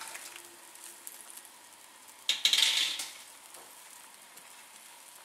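Seafood broth boiling in a wok with a low, steady bubbling hiss. About two seconds in comes one loud, sharp burst of noise lasting under a second.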